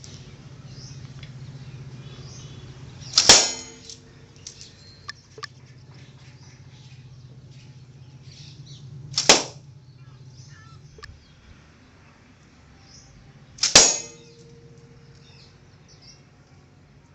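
Homemade PVC-pipe slingshot firing three times, about 3, 9 and 14 seconds in, each shot a sharp snap with a brief ring, over a steady low hum.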